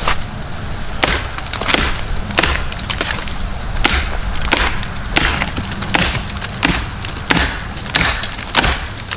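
Full-size parang machete chopping into a hickory log: a steady run of a dozen or so sharp blade strikes into the wood, roughly one every three quarters of a second, starting about a second in.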